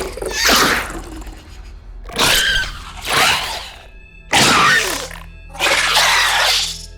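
Designed monster and creature vocal effects: about five harsh growls and roars in a row, each half a second to a second long. Under them runs a low, steady music drone.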